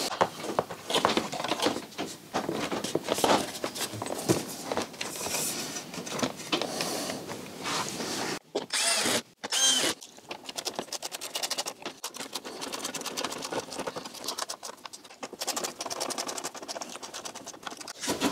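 Screws being driven into a motorcycle's plastic side fairing panel with a screwdriver, heard as a fast, even run of ticking clicks in the second half. Before that there are handling and rustling sounds as the panel is positioned.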